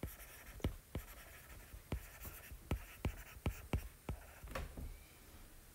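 Stylus tapping and scratching on a tablet's glass screen while handwriting a word: a run of about nine sharp taps, roughly two a second, thinning out a little before the end.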